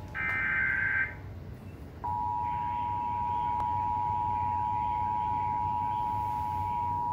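Emergency Alert System activation for a severe thunderstorm warning: a short burst of the SAME digital header's data tones ends about a second in. After a brief pause, at about two seconds, the steady two-tone EAS attention signal begins and holds.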